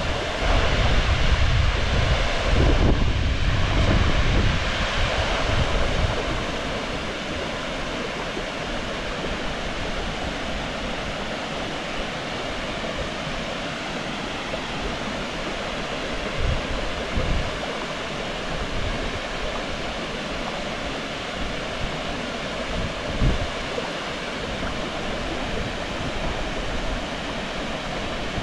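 Water pouring over a small river weir: a steady rushing, louder with a low rumble for the first six seconds. A few brief low knocks sound over it near the middle and later.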